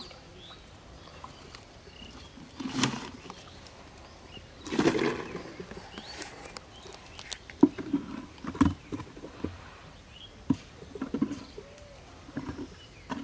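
Two brief bursts of rustling, then a scattering of short sharp knocks and small scrapes, as a plastic bucket and sack are handled on dry ground at the water's edge.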